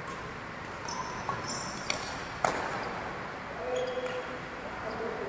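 Badminton shuttlecock struck by rackets in a rally: two sharp smacks about half a second apart, the second the louder. Brief high squeaks of shoes on the court floor come before and after.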